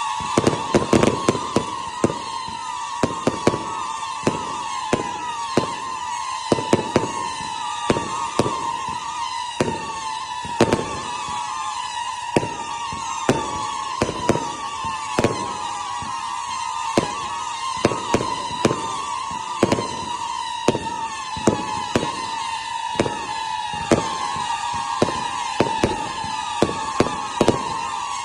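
A 108-shot fireworks cake firing in quick succession: sharp bangs roughly two a second over a continuous high whistling, with many short falling whistles.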